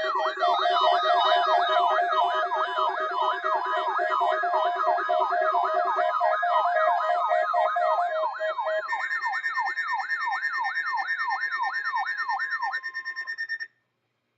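Several electronic sirens yelping at once: fast, overlapping rise-and-fall sweeps a few times a second over steady tones. The mix shifts partway through and the sound cuts off suddenly near the end.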